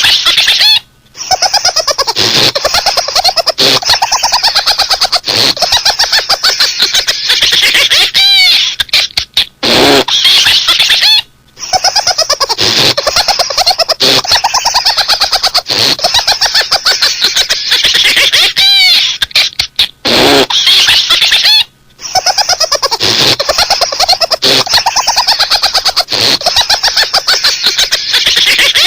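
High-pitched, rapid laughter, the 'cat laugh' sound. The same stretch repeats about every ten seconds, with a brief break between each run.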